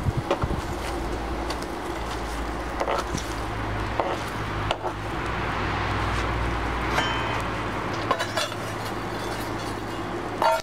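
Forge fire burning hard with a steady low hum that stops near the end, while steel tongs clink and scrape against the chainsaw chain in the coals.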